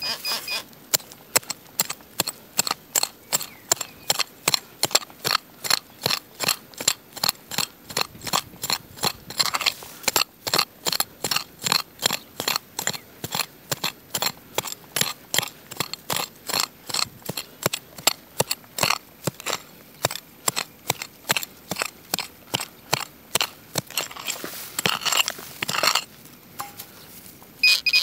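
Metal detector giving a rapid, even ticking, about three clicks a second, as its search coil is swept over dry stubble and soil. The ticking grows louder a little before the end, then thins out.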